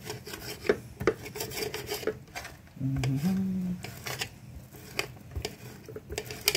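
Kitchen knife chopping sliced turkey and salami into small pieces, with repeated short clicks and scrapes of the blade against the dish underneath. About three seconds in, a brief hummed voice sound rises in pitch for about a second.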